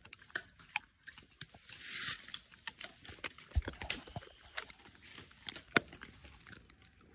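Bernese mountain dog chewing a dried tendon chew: irregular crunches and sharp cracks as it bites down, with a short hiss about two seconds in.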